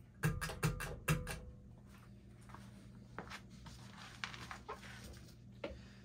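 1998 Hunter Sea Air ceiling fan running on low speed with a steady low motor hum. A quick run of loud clicks and knocks comes in the first second and a half, then lighter scattered ticks.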